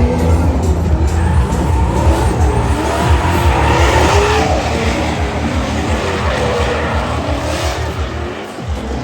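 Ford Mustang engine running hard at high revs on a race track, with tires squealing and wavering in pitch through the middle seconds.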